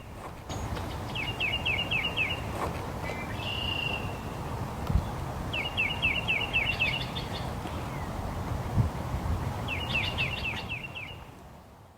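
A songbird singing the same short phrase of quick, falling high notes three times over a steady outdoor background noise, which fades out near the end.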